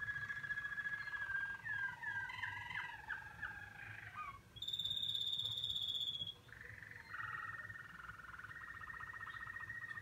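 Domestic canary singing: long rolling trills, a run of quick sweeping notes, then a higher trill about halfway through that is the loudest part, before a low rolling trill returns and carries on.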